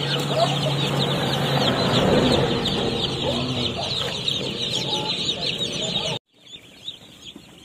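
A crowd of Cobb 500 broiler chicks peeping, many short high calls overlapping in a steady chorus. About six seconds in, the sound drops off suddenly to a much fainter peeping.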